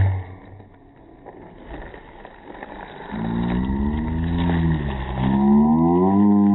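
Black plastic bag crinkling and rustling as it is pulled open from around a box. From about three seconds in, a loud drawn-out moaning tone comes in and rises and falls in slow swells.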